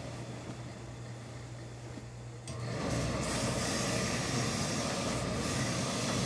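Hose-fed steam iron hissing steadily as steam is let out, starting abruptly about two and a half seconds in, over a low steady hum.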